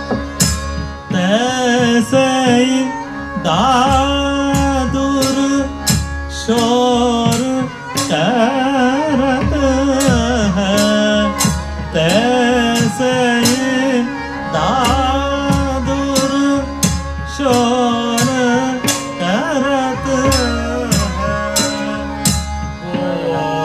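Haveli Sangeet devotional song: a male voice sings long, ornamented phrases over a harmonium, with a double-headed barrel drum keeping a steady rhythm.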